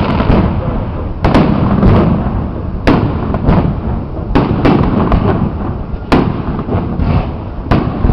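Aerial fireworks shells bursting in quick succession, a sharp bang about every half second to a second, over a continuous low rumble of the show.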